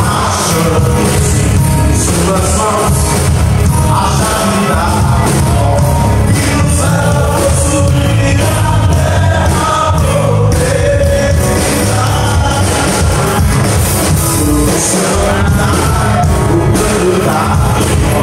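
Live gospel band playing loudly with electric guitars, drum kit and keyboard, a singer's voice over the top.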